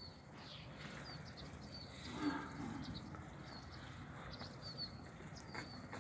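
Faint livestock-yard sound: small birds chirping in short high notes throughout, and about two seconds in a short low call from a Nili-Ravi buffalo calf.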